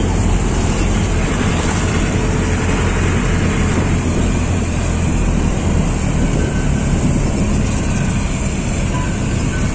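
Wind rushing over the microphone of a moving vehicle, mixed with the steady running of BMW GS adventure motorcycles riding close behind.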